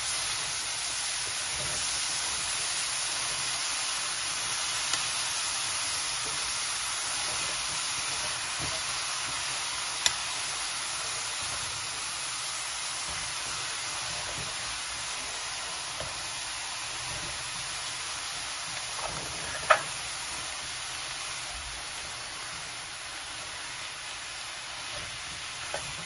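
Shredded cabbage sizzling as it stir-fries in a metal pan, turned with a metal spatula; the sizzle slowly fades. A few sharp taps of the spatula on the pan stand out, the loudest about three-quarters of the way through.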